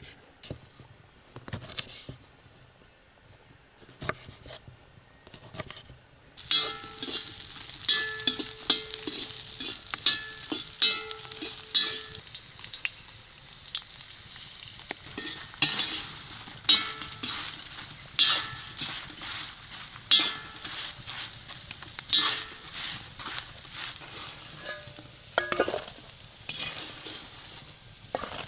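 Food sizzling in a hot frying pan, starting suddenly about six seconds in, with a utensil scraping and clinking against the pan as it is stirred. Before that, only faint light clicks and rubbing.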